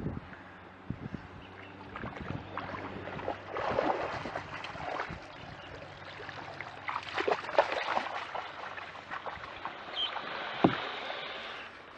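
Kayak paddling: paddle strokes splashing and dripping in slow water, in irregular swells, with small knocks and a single sharp knock near the end.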